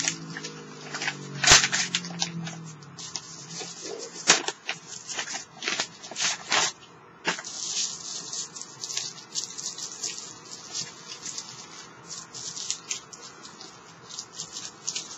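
Plastic packaging and DVD cases being handled: irregular crinkling and rustling with sharp clicks, the loudest about a second and a half in.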